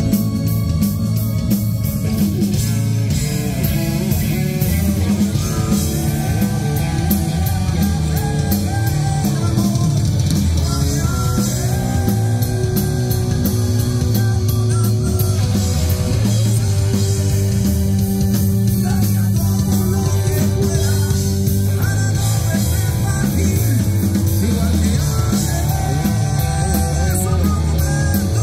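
Live rock band playing loud and without a break: electric guitar, drum kit and keyboard.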